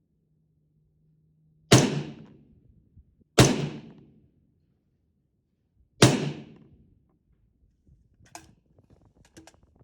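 Three shots from an AR-15 rifle firing a Varget-powder handload, the second coming less than two seconds after the first and the third about two and a half seconds later, each with a short ringing tail. Faint clicks and knocks follow near the end.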